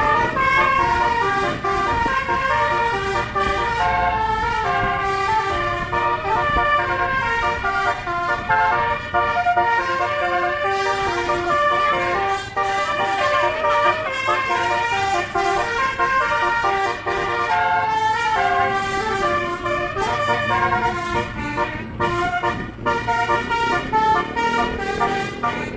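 Indonesian 'telolet' bus horn, a multi-trumpet tuned air horn (basuri), playing a tune of quick stepping notes without a break.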